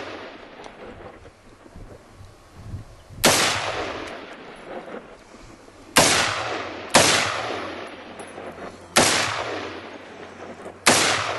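Five gunshots spaced one to three seconds apart, each sharp crack trailing off in a long echo.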